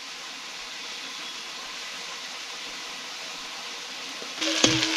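Food frying in a hot pan: a low, steady sizzle that turns suddenly louder near the end, with a single clank, as more goes into the pan or is stirred.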